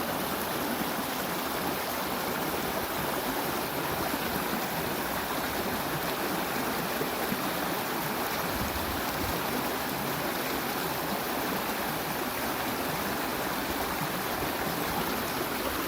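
Rain-swollen creek in flood, water rushing steadily over its bed.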